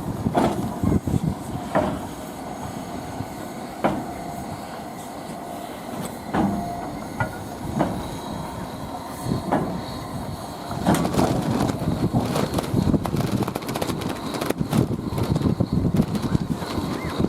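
Railway cars moving slowly during shunting: spaced metallic knocks and clanks, then a denser run of rapid clicking and knocking from about eleven seconds in.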